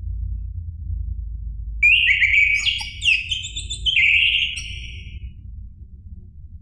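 Orange-headed thrush singing: one burst of rapid, varied whistled notes starting about two seconds in and lasting some three and a half seconds, over a steady low rumble.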